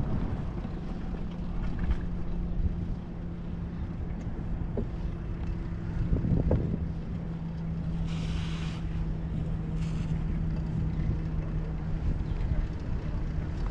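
Wind rumbling on a helmet- or bike-mounted action camera's microphone during a bicycle ride, over a steady low motor hum from traffic. A short hiss comes about eight seconds in.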